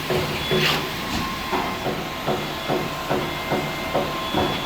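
Concrete pump truck running while pumping, with a steady rhythmic knocking about two to three times a second and sharp hisses a little under a second in and again at the end.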